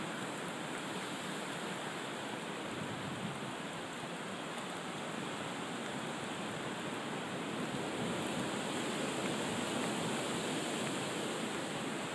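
Hurricane wind rushing through tall trees: a steady, even noise that swells a little about two-thirds of the way in.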